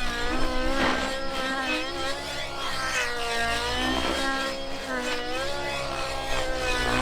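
Nitro RC helicopter's OS 91 Speed two-stroke glow engine with an Absolute CNC tuned pipe, running at high speed in flight. Its note dips and climbs again about every two seconds as the load changes through manoeuvres.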